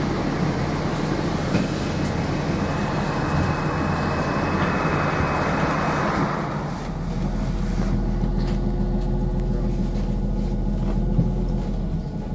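Interior noise of a NefAZ 5299 city bus under way: engine and road noise with a hissing rush that fades about six seconds in. After that comes a steadier, deeper engine drone.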